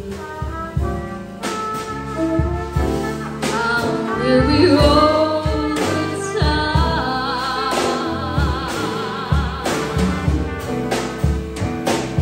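Live small jazz combo playing: a singer's voice with saxophone and trumpet over drum kit, guitar and piano.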